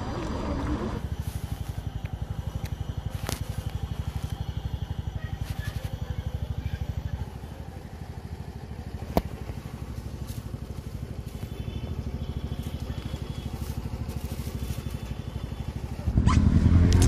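A small engine idling, a low steady throb pulsing about ten times a second, softer after about seven seconds. There is one sharp click about nine seconds in, and a loud voice cuts in just before the end.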